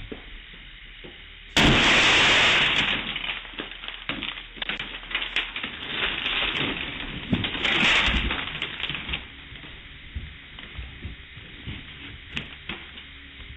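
A car window smashing about a second and a half in, followed by several seconds of crackling and clinking glass, with a second burst of breaking glass about eight seconds in.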